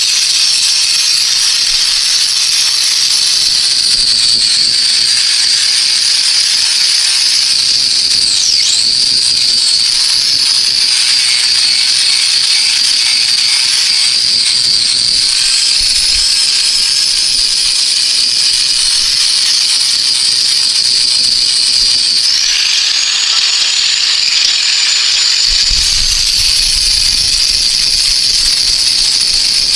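Angle grinder with a wire wheel running steadily at high speed, a loud high whine, as it scours rust off steel parts. The pitch dips briefly about nine seconds in and shifts again a little past the twenty-second mark as the load on the wheel changes.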